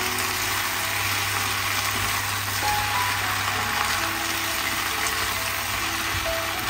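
Beef, fried potatoes and onions sizzling steadily in a frying pan as they are stir-fried, over a steady low hum and soft background music notes.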